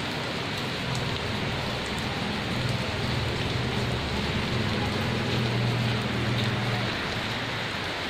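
Steady rain falling on tree leaves and the ground, an even hiss of many drops. A low hum rises underneath from about three seconds in and fades near seven seconds.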